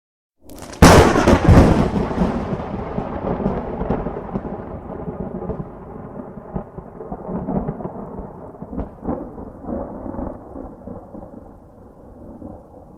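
Sound-effect crack and rumble: a sudden loud crack just under a second in, then a long rumble with scattered crackles that fades away over about ten seconds, like a thunderclap.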